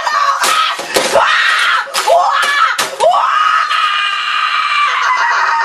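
A boy screaming in a high, strained voice, broken by several sharp knocks in the first three seconds, then one long, unbroken scream held from about three seconds in.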